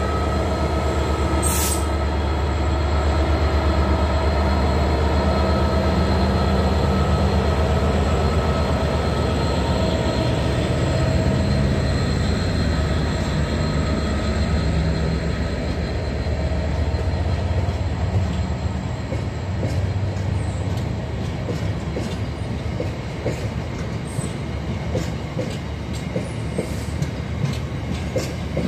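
Class 66 diesel-electric freight locomotive, with its two-stroke V12 engine, hauling a long train of hopper wagons past. The engine's deep hum is strongest in the first half and slowly fades, giving way to the rumble of the wagons rolling by. In the second half the wheels clatter in a steady rhythm.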